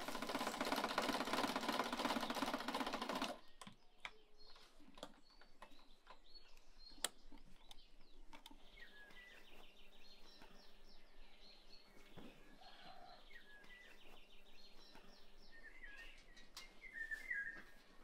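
A loud, dense mechanical rattle for about three seconds that stops suddenly. After it, birds chirping, with scattered light clicks.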